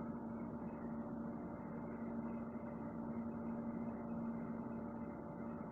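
Steady background hum with a constant low tone, unchanging throughout.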